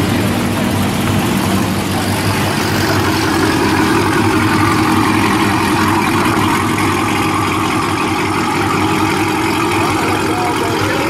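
A car engine idling steadily, with an even low note that does not rev.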